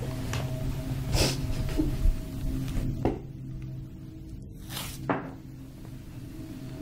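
A few sudden knocks and rustles, about four in all, over a steady low hum.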